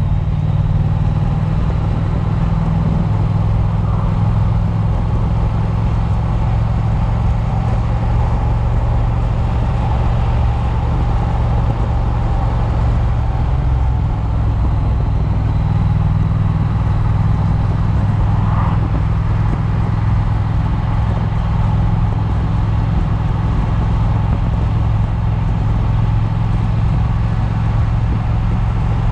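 Triumph motorcycle engine running steadily at road speed, heard from the rider's chest-mounted camera with wind noise over the microphone.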